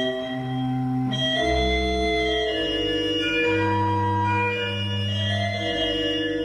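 Slow background organ music: sustained chords with held bass notes, each chord changing every one to two seconds.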